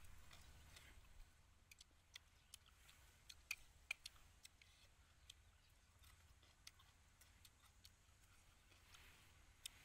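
Faint eating sounds with chopsticks from a plate: scattered sharp clicks and mouth smacks at an uneven pace, the loudest a few seconds in, over a faint low rumble.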